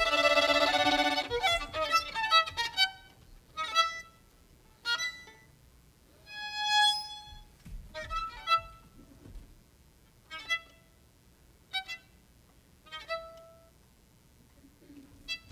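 A string quartet led by violin sustains a chord for about a second and a half, then plays sparse, short detached notes separated by pauses, with one longer held note about halfway through.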